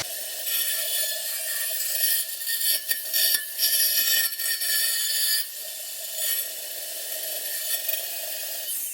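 Angle grinder grinding steel: a steady whine under a rasping scrape that swells and eases in uneven strokes, loudest in the first half.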